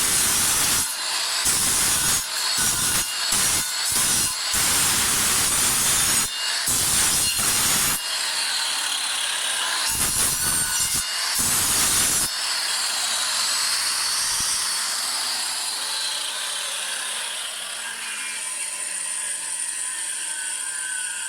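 Handheld electric precision rotary tool grinding away components on a circuit board around a chip, in repeated rasping bursts for about the first twelve seconds. After that it runs more quietly with a high whine, and the pitch slowly falls near the end.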